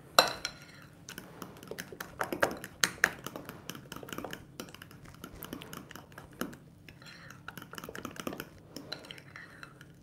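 Fork beating a thick ricotta and egg filling in a glass bowl: irregular quick clicks and scrapes of metal against the glass, with a few louder knocks, the sharpest right at the start.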